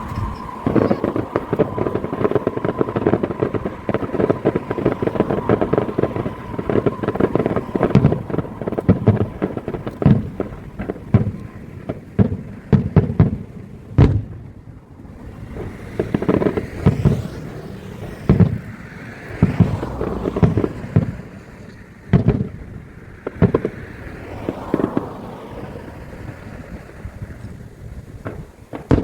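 Fireworks show: a dense, rapid crackle of many bangs for the first half, then separate booms a second or two apart, with whistling glides between them.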